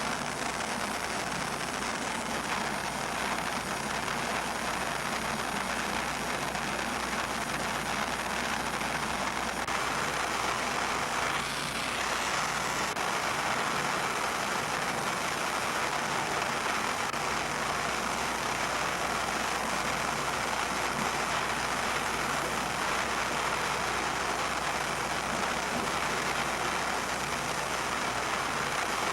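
Gas torch flame running with a steady hiss, heating a drilled-out rusted bolt until it is red hot.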